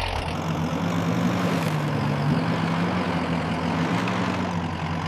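A steady engine hum with a held low tone under a rushing noise, as of a vehicle running; the pitch steps slightly about two seconds in.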